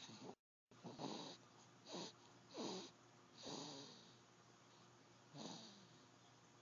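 Quiet snoring in sleep: a run of short, squeaky snores, each sliding down in pitch, coming about once a second with a longer pause before the last one.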